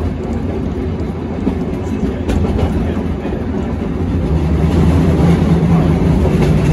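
1896 Hammond Car Co. open streetcar running on its rails, heard from on board: steady wheel and running noise, with a low hum that grows louder about two-thirds of the way in.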